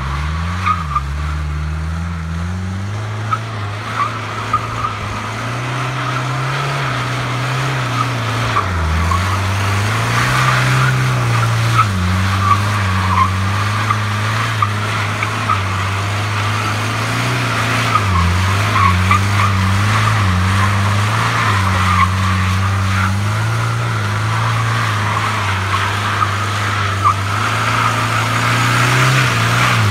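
Mercedes 240D with its four-cylinder diesel engine, drifting: its tyres squeal continuously while the engine note rises and falls with the throttle.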